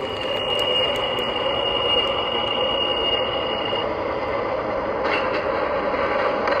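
MTH O-gauge R12 subway model train running, its onboard sound system playing subway running sounds over the rumble of the model on the track. A thin high steady whine stops about four seconds in.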